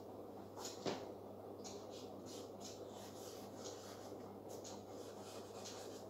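Marker pen rubbing and squeaking on a whiteboard in a run of short strokes as a word is written, with one sharp click about a second in. A steady low hum runs underneath.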